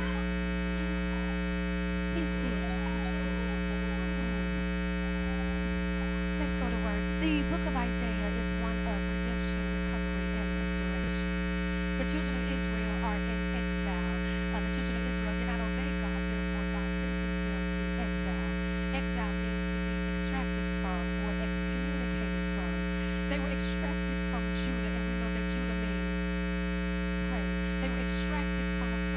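Steady electrical mains hum, a dense stack of unchanging tones, with faint indistinct voices buried beneath it.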